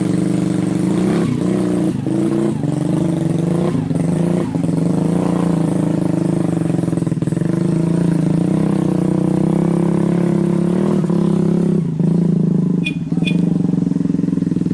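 A vehicle engine running at a fairly steady speed, with scattered light knocks and rattles, and two short high chirps about thirteen seconds in.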